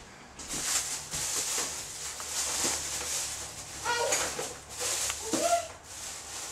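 A cat meows twice, short pitched calls about four and five seconds in, the second rising then falling, over a pulsing hiss.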